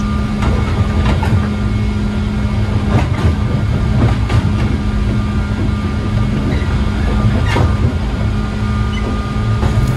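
Interior of a JR 103 series resistance-controlled electric commuter train running fast, with a steady rumble and the hum of its traction motors. A few sharp clacks come from the wheels over rail joints, about 3, 4 and 7.5 seconds in.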